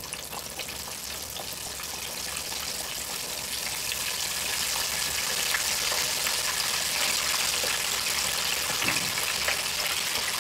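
Floured pork chops frying in an electric deep fryer's oil at 375 °F: a steady hiss of sizzling oil. It grows louder over the first few seconds, then holds.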